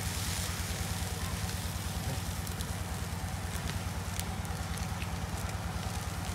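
Meat grilling on a wire grate over a charcoal fire: a steady sizzle and crackle with scattered small pops, over a steady low hum.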